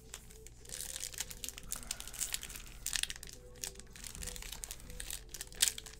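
Foil wrappers of basketball trading-card packs crinkling and tearing as they are handled and opened: a quick, irregular run of crackles.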